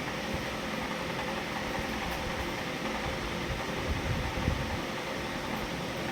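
Steady, even hiss of background noise, like a running fan, with no distinct events.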